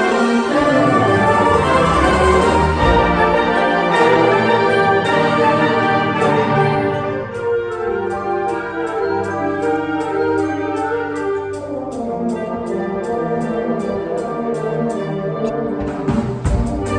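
School band playing: sustained brass chords over lower parts. Sharp percussion hits come a few seconds in, and a steady beat of high ticking percussion runs through the second half.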